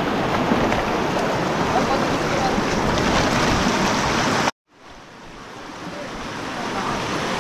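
Steady rush of flowing river water. About four and a half seconds in it cuts out abruptly, then swells gradually back up.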